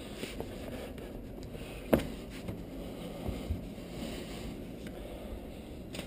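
Soft rubbing and handling noise of a cloth wiping kitchen cabinet fronts, with one sharp knock about two seconds in.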